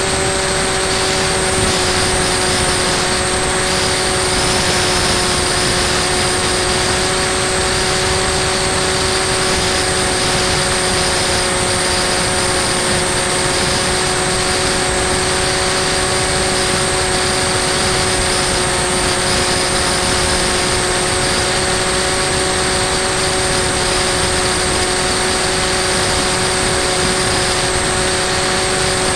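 Bixler 2 RC plane's brushless electric motor and pusher propeller running at a steady, unchanging whine at constant throttle, heard through the onboard camera, over a steady rush of air noise.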